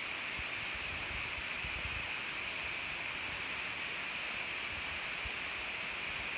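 A steady hiss, strongest in a high band, with a few faint low thumps.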